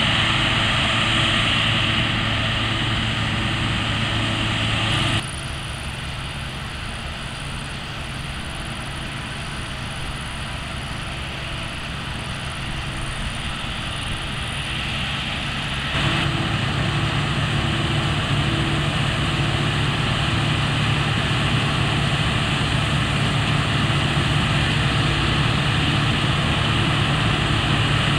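Claas Lexion combine harvester running steadily while harvesting grain: a continuous engine drone mixed with the hum of the cutter bar and threshing drum. The sound drops suddenly about five seconds in and comes back louder about two-thirds of the way through.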